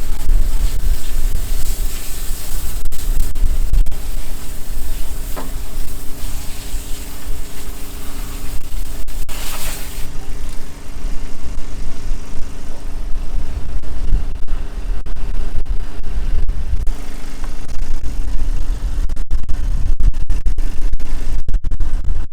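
An engine running steadily under heavy rumbling buffeting on the microphone. A loud hiss runs over it and cuts off suddenly about ten seconds in.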